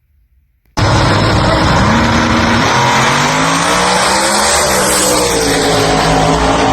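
Drag race car engine cutting in suddenly about a second in, running loud with its pitch climbing, dropping back and then holding steady.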